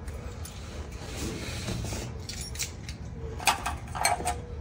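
Light rustling and clicking of a pressure relief valve and its thread-sealing tape being handled, with two sharper clicks near the end, over a low steady hum.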